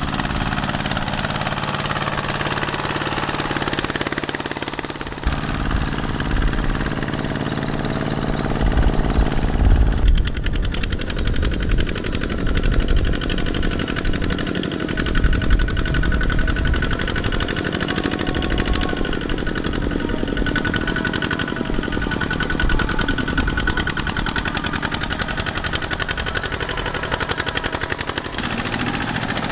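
Single-cylinder diesel engine of a two-wheel walking tractor chugging steadily under load as it hauls a trailer of rice sacks through deep mud. The engine note changes abruptly about five and ten seconds in, and after that it becomes a rapid, harsh knocking.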